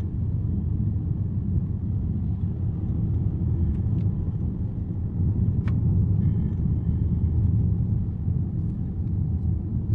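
Steady low rumble of a car driving, heard from inside the cabin: road and engine noise with a few faint clicks.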